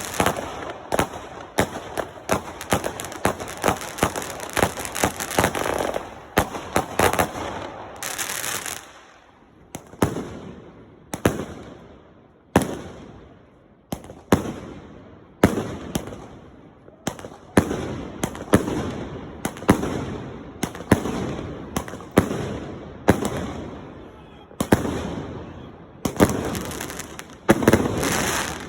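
Fireworks going off: a dense barrage of rapid bangs and crackle for about the first eight seconds, then single loud bangs about once a second, each trailing off in a fading rumble.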